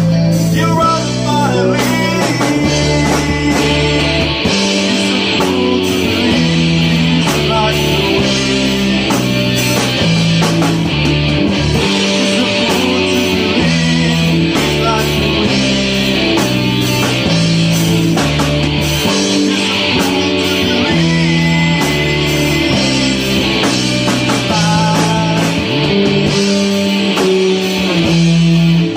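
A small live rock band playing a song: electric bass holding notes that change every second or two, electric guitar and drums, with a man singing lead through a microphone.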